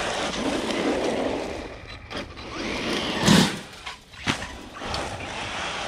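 Electric RC buggy driving over dirt and gravel: the motor runs and the tyres scrabble across the ground. There is a sharp thump about three seconds in and lighter knocks around it.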